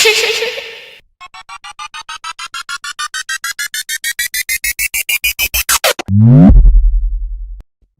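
Synthesized sound effects: a short noisy hit, then a run of beeps that speed up and climb in pitch for about five seconds, which cuts off into a quick downward sweep and a deep bass tone that stops abruptly.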